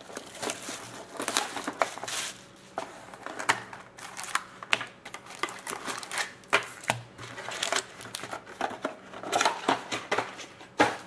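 Wrappers of trading card packs being torn open and crinkled, with irregular sharp crackles and rustles.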